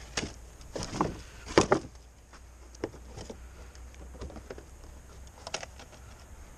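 Scattered knocks and scrapes from handling arrows at a cardboard box target, the loudest about a second and a half in, over a low steady rumble.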